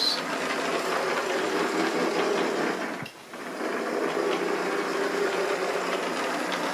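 Lima H0-scale model diesel locomotive running steadily around a layout: a constant small-motor whirr with its wheels rolling on the track, dipping briefly about three seconds in.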